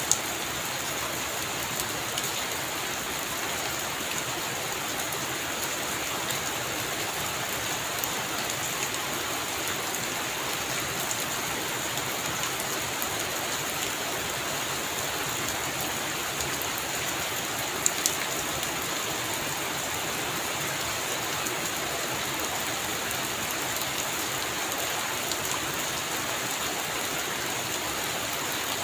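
Heavy rain falling steadily on foliage and ground, an even hiss of countless drops. A few louder single drops stand out: one at the start, one about a third of the way in, and two close together about two-thirds through.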